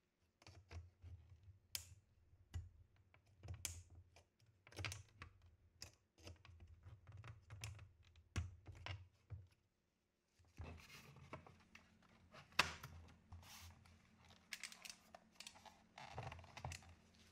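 Faint, irregular clicks and taps of a steel wire spring and pliers against the plastic foot and case of an IBM Model F XT keyboard as the spring is refitted. After a break about ten seconds in, denser rubbing and tapping of hands on the plastic case over a faint steady hum.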